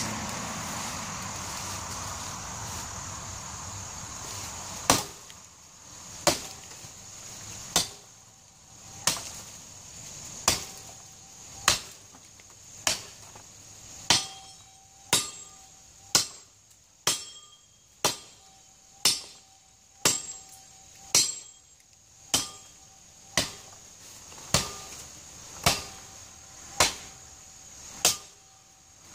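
A steel broadsword chopping into the trunk of a dogwood tree, starting about five seconds in: sharp blows about once a second, some twenty in all.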